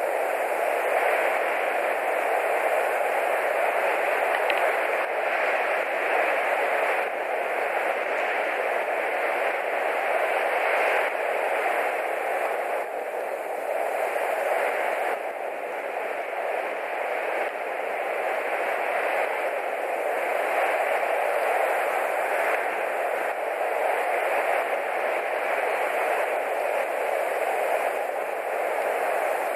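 Steady, even hiss of background noise that swells and eases slightly, with no bird calls.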